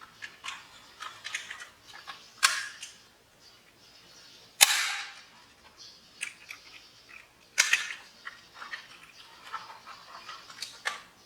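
Die-cast toy minicars clicking and clacking: scattered light clicks and knocks, with two sharper, louder clacks, one about halfway through and one a few seconds later.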